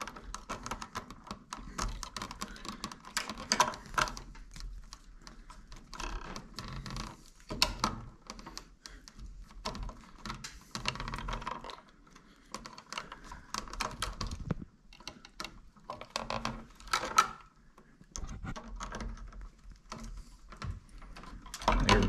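Bare copper ground wires being twisted together at a plastic switch box: irregular small clicks and scrapes of stiff wire being handled and worked.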